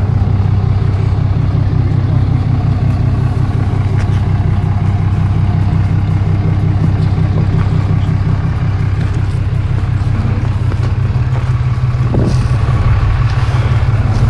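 Engine running steadily at an even speed, a loud low drone.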